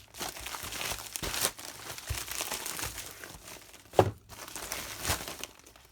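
Shipping-package packing material crinkling and rustling as items are pulled out by hand, with scattered small clicks and one sharp knock about four seconds in.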